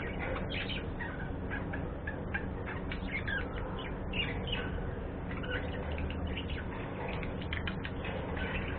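Budgerigars chattering: many short, overlapping chirps and squeaks, over a steady low hum.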